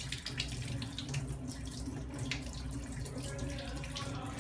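Tap water running into a stainless steel sink as a metal laryngoscope blade is rinsed under the stream, with a few brief sharper splashes.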